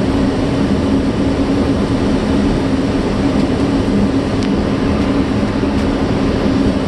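Steady engine and airflow noise heard inside a Boeing 757-300 flight deck, with a constant low hum under it.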